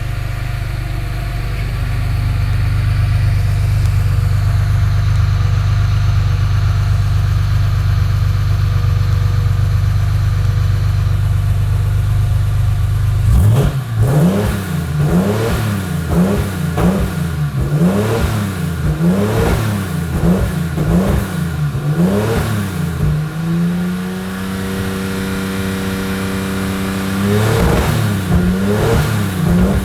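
Chevrolet Opala's 4.1-litre straight-six with 6-into-2 headers, heard from the exhaust: idling steadily, then from about halfway through revved in quick blips about once a second, held at a steady higher speed for a few seconds, then blipped again near the end.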